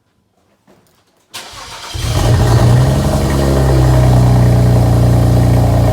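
BMW 335i's N54 twin-turbo inline-six starting on its first start with catless downpipes fitted. It cranks briefly about a second and a half in, catches, and settles into a loud, steady idle.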